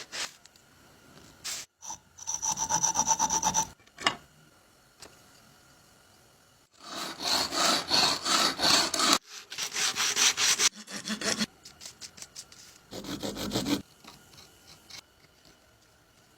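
Wood being sawn by hand with the small saw blade of a Swiss Army knife, in three spells of quick back-and-forth strokes with pauses between; the middle spell is the longest.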